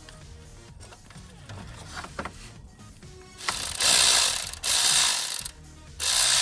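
Hand ratchet wrench clicking in quick spurts while a mounting bolt of a new belt tensioner pulley is driven in. After a few faint ticks, three loud runs of rapid clicking come about halfway in, with short pauses between them.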